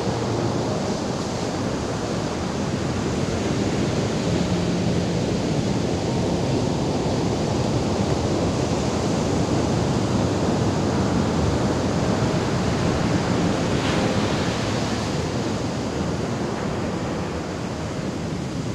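Ocean surf breaking and washing up a sand beach in a steady, continuous rush.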